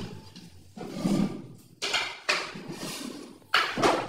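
Handling noise from a wooden MDF drawer box and its metal drawer slides: four knocks and scrapes, about a second apart.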